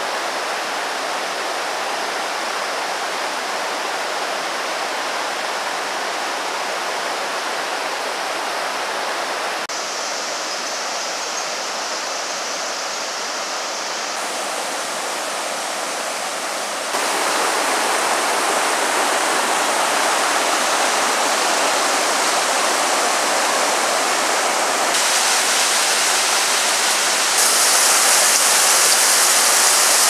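Steady rush of a rocky mountain stream and its waterfall cascades. Loudness and tone change abruptly several times, and the water is louder from a little past halfway on.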